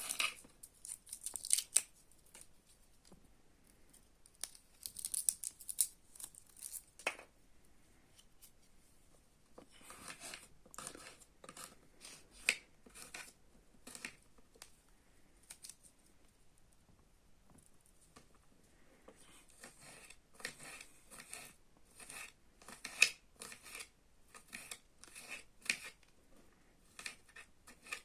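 Runs of short, crisp cutting strokes, a blade going through something firm, in quick clusters with pauses between them.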